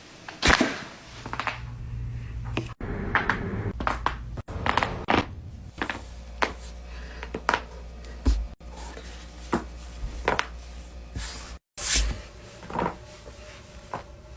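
A run of sharp cracks and pops from joints being cracked, about fifteen in all and a few every couple of seconds, the loudest about half a second in, over a low hum. The sound cuts out abruptly several times between them.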